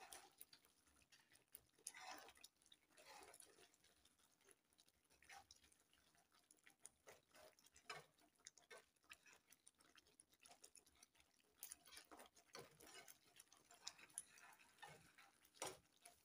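Faint, scattered clicks and scrapes of a spoon stirring thick masala gravy in a kadai, irregular and well apart, over near-silent room tone.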